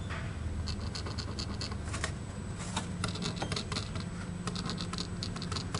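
A pen scratching on paper in quick, irregular short strokes as figures are written down, over a steady low hum.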